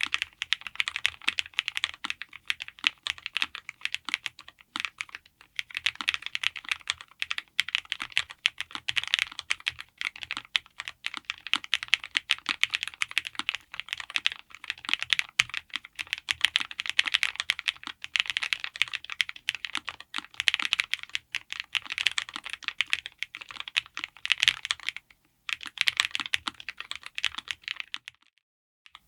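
Continuous fast typing on a Lofree Flow84 low-profile mechanical keyboard with Kailh Spring Mini linear switches, dense key clacks with a short pause about 25 seconds in, stopping just before the end.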